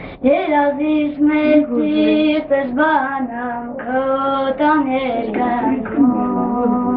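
A boy singing a song solo in a high, unbroken child's voice, holding notes through sung phrases with no instruments heard.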